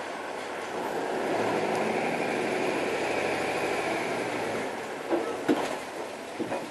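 Train passing over a level crossing: its running noise swells from about a second in and eases after about four seconds, followed by a few sharp knocks near the end.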